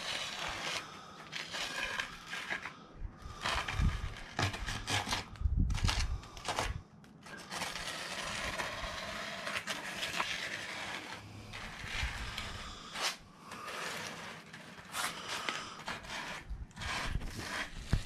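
Flat piece of wood dragged back and forth across wet concrete in a plastic pier cap mould, screeding it flat: an uneven rasping scrape, with a few dull knocks about four and six seconds in.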